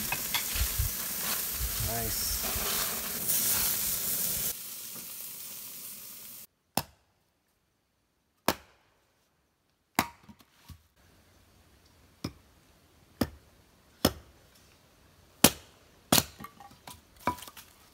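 First, burgers sizzling on a gas grill: a steady hiss that fades out about five seconds in. Then an axe splitting firewood on a chopping block: about nine sharp strikes, one every second or two.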